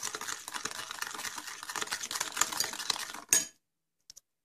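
Metal utensil beating egg and sugar in a small glass bowl: rapid, continuous clicking and scraping against the glass. It ends with one sharper knock a little over three seconds in.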